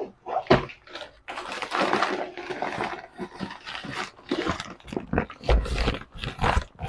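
Brown paper bag rustling and crinkling as it is lifted out of a cloth tote bag and handled, with a couple of soft thumps.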